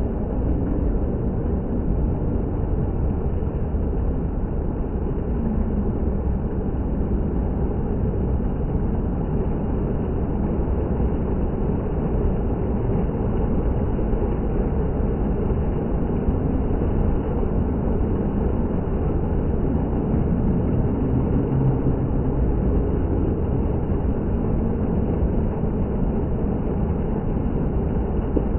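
Indoor water fountain running, a steady loud rush of falling and splashing water with no change or break.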